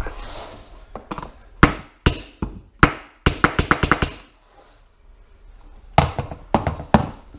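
Pneumatic nail gun firing against the flooring: three single sharp cracks, a quick rattle of shots, then three more near the end. The gun is not sinking the nails because a crooked nail is jammed inside it.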